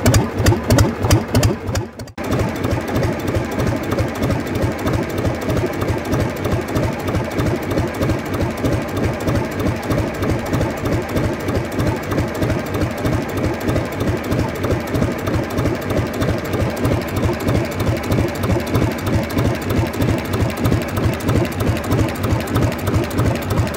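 1952 Gardner 2LW two-cylinder diesel engine running steadily on its first test run after overhaul. It keeps an even beat, with the clatter of its uncovered rocker gear working, and breaks off briefly about two seconds in.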